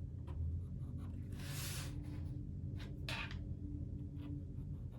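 Pencil marking on paper: a longer scratch about a second and a half in, then a few short strokes around three seconds.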